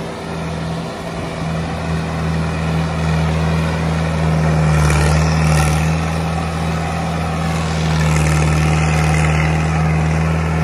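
Mahindra Arjun tractor's diesel engine running steadily as it pulls a heavily loaded trolley: a deep, even drone that swells slightly twice.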